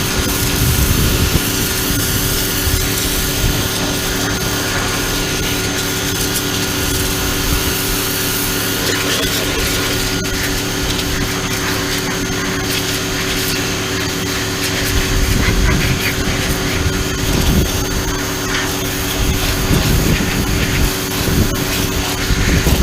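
Portland electric pressure washer running: a steady motor-and-pump hum under the loud hiss of the high-pressure water spray, which grows louder now and then in the second half.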